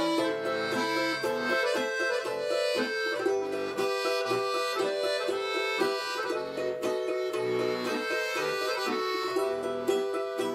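Instrumental interlude of a Russian folk song: a balalaika plucked in quick repeated notes over held chords from a bayan, the button accordion.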